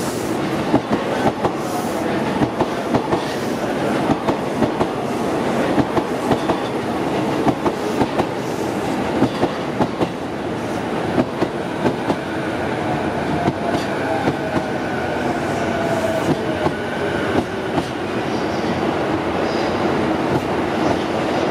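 JR East E233 series electric train rolling past at a station, its wheels clicking sharply and unevenly over rail joints and points. A faint whine falls in pitch in the second half as the train slows.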